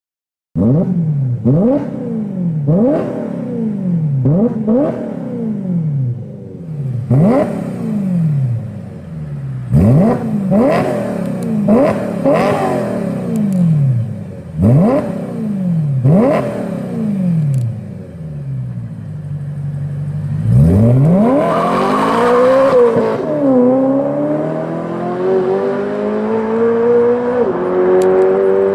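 BMW M3 E92's 4.0-litre V8 with an aftermarket exhaust, revved in a quick series of sharp throttle blips, each falling back toward idle. About 20 seconds in it revs longer, then the car pulls away and accelerates, the pitch climbing steadily with a shift near the end.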